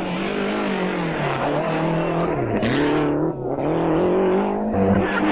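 Group A rally car engine at full throttle on a tarmac stage. Its note climbs and drops through gear changes and lifts, with a sharp fall about two and a half seconds in before it picks up again.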